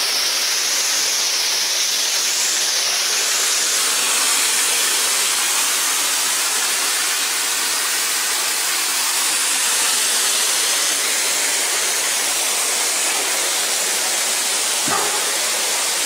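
Rushing water of a rocky mountain stream below Thudugala Ella waterfall, cascading over boulders as a steady, even hiss.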